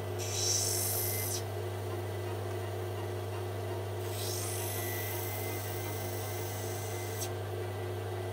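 Rough opal pressed against a spinning wet grinding wheel of a lapidary cabbing machine, a gritty hissing grind over the machine's steady motor hum. The stone is ground twice: briefly near the start, then for about three seconds from about four seconds in, stopping suddenly.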